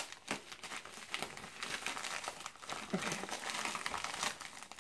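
Priority Mail flat rate envelope being torn open and crinkled by hand: a sharp rip right at the start, then steady crinkling and tearing of the stiff envelope.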